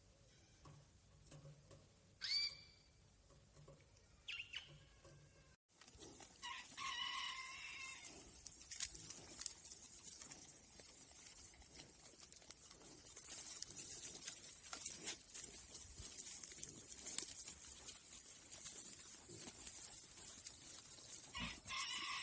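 Chickens calling in a farmyard: a couple of short calls in the first seconds, then after an abrupt cut two longer calls with several overtones, one about seven seconds in and one near the end, over a steady high hiss.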